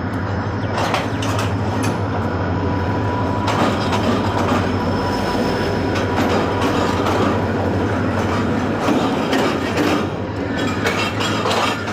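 A moving train: a steady rumble with the wheels clattering over the rail joints.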